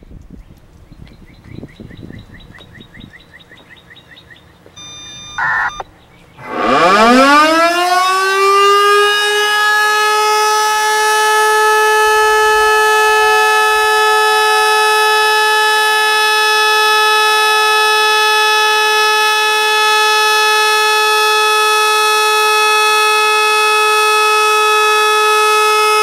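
Federal Signal Model 2 outdoor warning siren winding up about six and a half seconds in, its pitch rising quickly before it settles into a steady Alert tone. The recordist notes it is pitched lower than normal for this model. Before the wind-up come faint rapid chirps and a brief tone.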